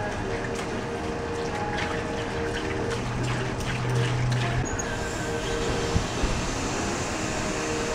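Molasses poured from a jug into a plastic tub of water, mixing a one-to-nine molasses rust-removal bath, with a run of short splashy glugs in the first half over a steady low hum that stops about halfway through.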